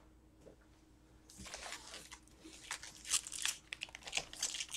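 Wrappers of Upper Deck hockey card packs crinkling and rustling as the packs are handled, starting about a second in as a string of short, irregular crinkles.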